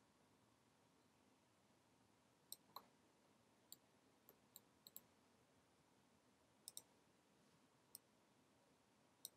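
Sparse computer mouse clicks over near silence: about a dozen short, sharp clicks at irregular intervals, a few in quick pairs, as vertices are selected and moved in Blender.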